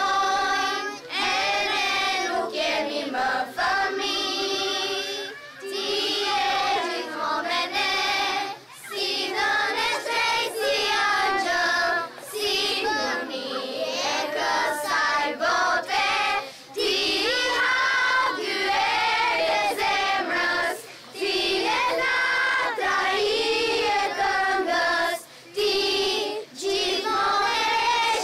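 A group of children singing a song together, the singing broken into phrases by short pauses.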